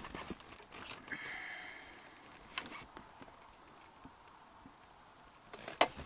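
Handling noises of hand tools being picked up and set against metal: scattered light clicks and knocks, with a brief squeak about a second in. Near the end a sharp metal click, the loudest sound, as pliers close on the brake light switch's spade terminals.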